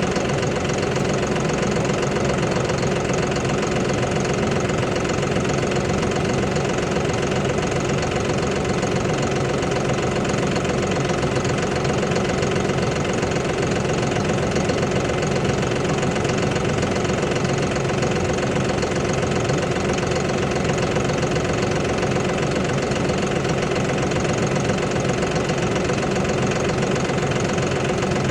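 A motor-driven machine running steadily at one constant speed, with a steady hum.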